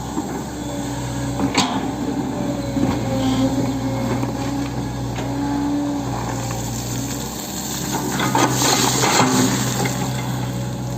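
Hitachi 110M excavator's diesel engine running steadily, with a sharp knock about one and a half seconds in and a louder rough, clattering stretch near the end.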